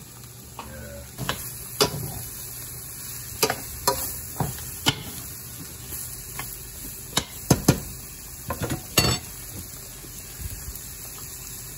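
Metal spoon stirring sliced cremini mushrooms and butter in a stainless steel sauté pan, with a dozen or so sharp clinks and scrapes of the spoon against the pan over a steady low sizzle.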